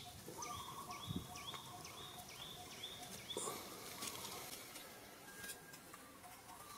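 Faint animal calls: a string of about six short, high notes, each dropping at its end, about two and a half a second, over a faint steady outdoor background.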